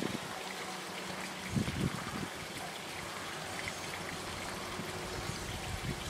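Steady outdoor background rush, an even hiss with no distinct source, with low wind buffets on the microphone about one and a half to two seconds in.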